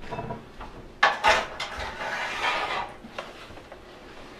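Kitchen clatter as a hot metal sizzler plate is handled and set down on a wooden tray and butcher block, with a few sharp knocks about a second in.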